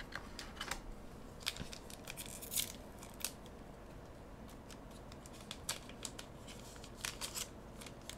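Trading cards and a foil booster-pack wrapper being handled: scattered short crinkles, rips and card-sliding swishes, clustered in the first few seconds and again near the end.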